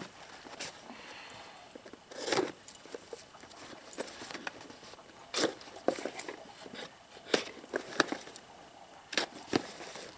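A cardboard shipping box being opened by hand: irregular crackling, scraping and rustling of packaging, with a few louder sharp crackles spread through.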